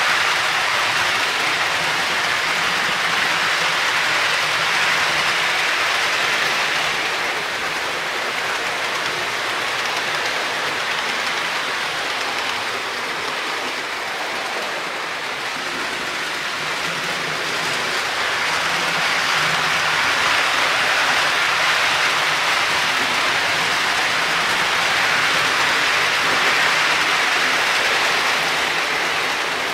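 Märklin HO-scale model trains rolling around the layout: a steady rushing hiss of wheels on the track, easing off for a while and swelling again as the trains come nearer.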